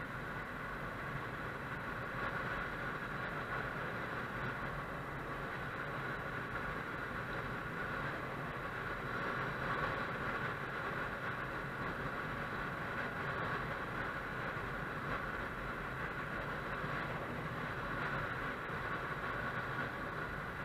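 Motorcycle under way at a steady pace: its engine running under wind and road noise.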